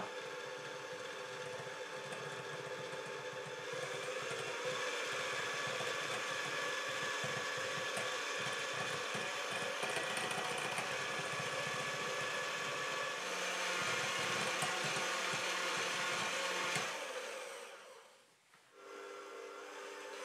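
Electric hand mixer running steadily, its beaters whisking egg yolks and sugar in a glass bowl. Near the end it cuts out briefly, then runs again more quietly in egg whites.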